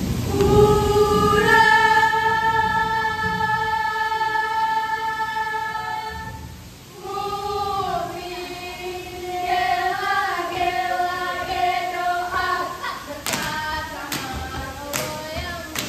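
Young female voices singing a Ratoh Jaroe chant in unison: one long held note for about six seconds, then a moving melody. Four sharp body-percussion hits come in the last few seconds.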